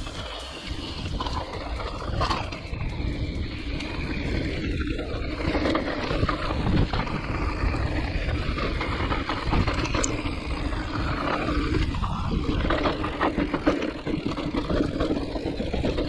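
Wind rushing over the microphone with the rumble and rattle of a mountain bike riding over a rough trail, with scattered knocks throughout.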